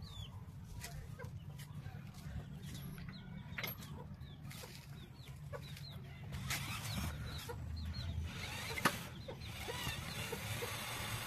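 Chickens clucking over a steady low rumble, with scattered clicks and one sharp knock about nine seconds in.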